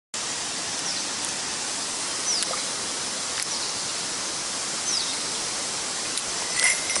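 Mountain stream rushing steadily. A bird gives short, high, falling calls every couple of seconds, and a few light clicks sound over the water.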